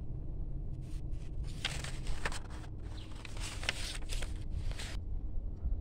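Open-air city background: a steady low rumble with scattered light ticks and taps at irregular intervals.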